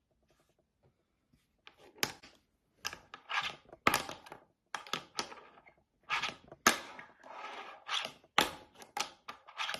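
Flatface G16 fingerboard being flicked through trick attempts: sharp clacks of the tail popping and the board landing and slapping on a hard surface, with brief rolling rasps from the wheels between them. The clacks start after a second and a half of near silence and come irregularly, a dozen or so.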